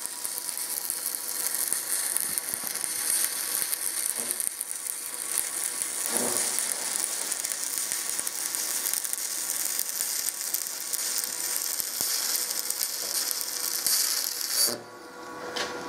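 Stick (SMAW) welding arc on a 7018 electrode crackling and sizzling steadily during a vertical-up bead. It cuts off abruptly about a second before the end.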